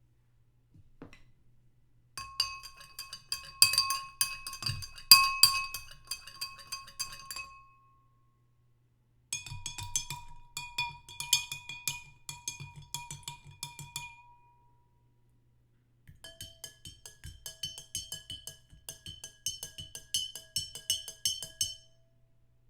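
A spoon stirring in a drinking glass, clinking rapidly against the sides so the glass rings. There are three separate runs of stirring, and each rings at a different pitch.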